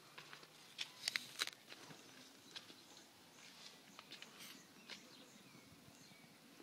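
Faint scattered clicks and rustling from dry palm fronds and the camera being handled close against them, with a louder cluster of sharp clicks about a second in.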